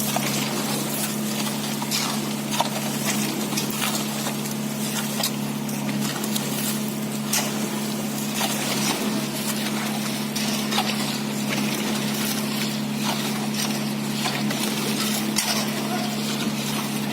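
Concrete pump running with a steady drone under a constant rush of noise, with scattered clicks and knocks as the slab is poured.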